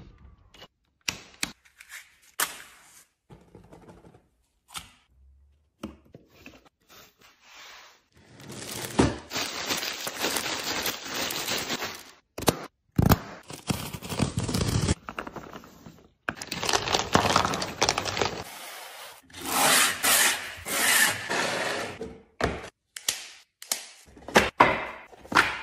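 Packaging being handled: plastic wrapping crinkles and rustles in several stretches of a few seconds, between scattered clicks, knocks and scrapes of cardboard and other items.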